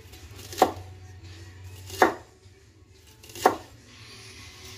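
Kitchen knife slicing a red onion into rings on a wooden chopping board: three slow, separate cuts about a second and a half apart, each ending in a sharp knock of the blade on the board.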